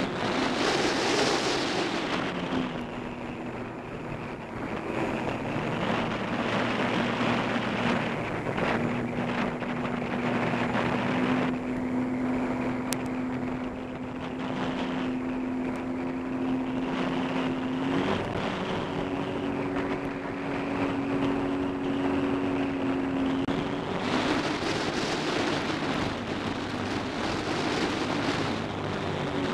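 Personal watercraft engine running at speed, a steady drone whose pitch steps up or down a few times as the throttle changes, over rushing water spray and wind on the microphone; the spray and wind noise are heaviest at the start and again near the end.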